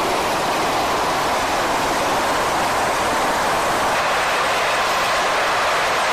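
Steady, even rushing noise of a ship's flight deck, a loud hiss with no distinct engine tone or individual impacts.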